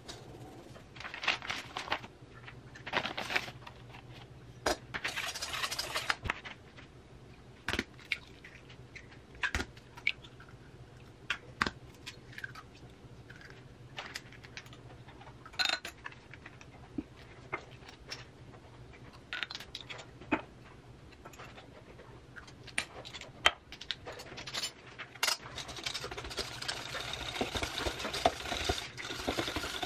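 Cupcake batter being made by hand: a fine-mesh sieve is shaken and tapped over a stainless steel bowl in a few short rustling bursts, then scattered clinks and knocks of utensils, spoons and bowls on a granite counter. Near the end a wire whisk starts beating batter steadily in the metal bowl.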